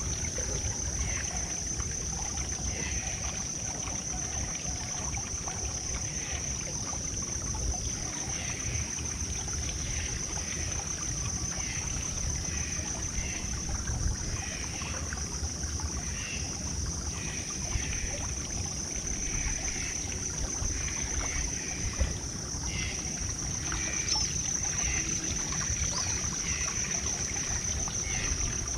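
Wind rumbling on the microphone under a steady high-pitched drone, with scattered short chirps throughout.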